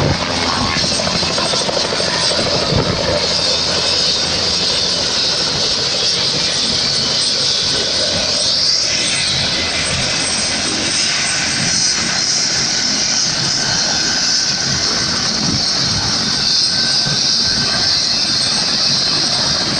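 Turbine helicopters running close by: a steady, loud mix of rotor and turbine noise as one lifts off and departs while another's rotors turn on the pad.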